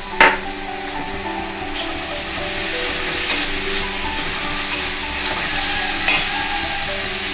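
Ginger paste and ground spices frying in mustard oil in a metal kadai, sizzling louder from about two seconds in as a metal spatula stirs them, with a few sharp clicks of the spatula against the pan. This is the masala being fried down for a fish curry.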